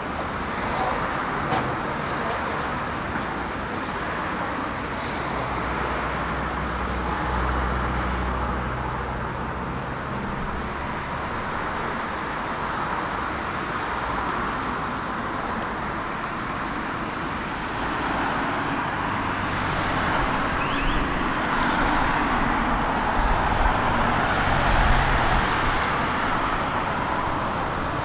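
City road traffic: a steady wash of cars and other vehicles driving past on a multi-lane street, growing a little louder in the second half as vehicles pass close by.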